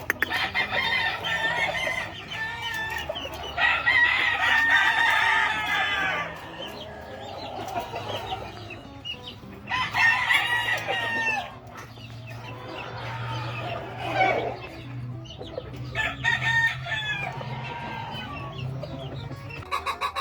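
Gamefowl roosters crowing one after another, about five crows, with clucking between them. A low steady hum runs underneath from partway through and stops shortly before the end.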